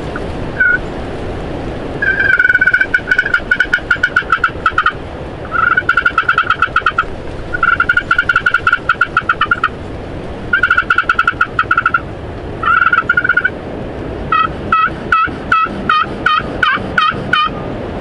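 Turkey hen calls: several strings of fast, sharp clucking notes (cutting), then a run of about a dozen slower yelps that dip in pitch near the end, over a steady rushing background noise.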